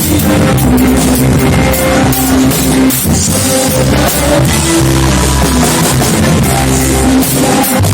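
Loud, steady band music with a drum kit, bass and guitar: instrumental worship music played by a live band.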